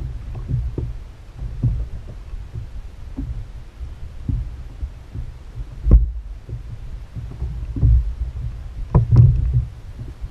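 Choppy water slapping against the hull of a fishing kayak: irregular low thumps, with a sharper knock about six seconds in and a loud cluster of knocks near the end.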